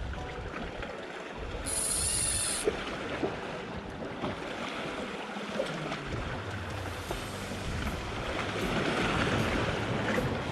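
Sea waves washing against shore rocks, with wind buffeting the microphone and a brief high hiss about two seconds in.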